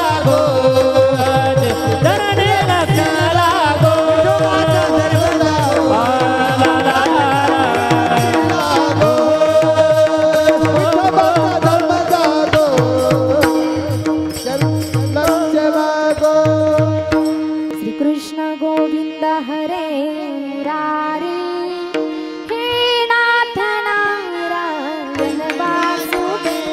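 Marathi kirtan music: a woman singing a devotional melody over a steady drone, with small hand cymbals and a drum keeping the beat. The drum strokes drop out about two-thirds of the way through, leaving the voice and drone.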